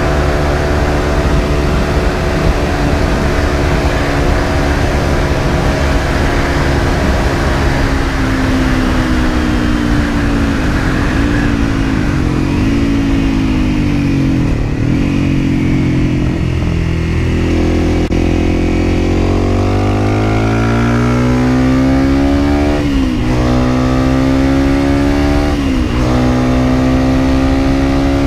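On-board sound of a Honda CRF250M supermoto's single-cylinder engine with wind rushing over the microphone. The bike slows through a string of gear changes over the first half, then accelerates hard from a little past the middle, the revs rising and dropping back at three upshifts near the end.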